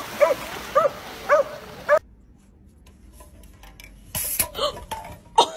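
A dog barking four times, about half a second apart, over a steady hiss of surf. Then the sound cuts off to a quieter stretch of light clicks and knocks with a short rustle.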